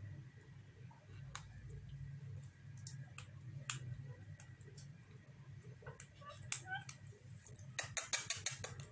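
Pet parrots' faint scattered beak clicks and taps, with a few soft squeaks, then a quick run of clicks near the end.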